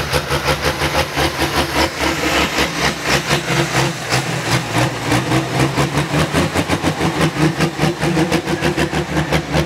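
Valtra 'Sigma Power' pulling tractor's diesel engine idling, with a steady pulsing beat about five times a second.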